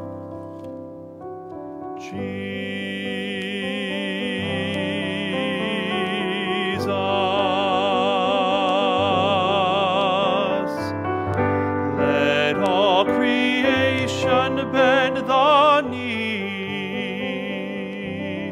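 A male cantor sings a hymn with a wide vibrato over a keyboard accompaniment. The keyboard chords sound first and the voice comes in about two seconds in.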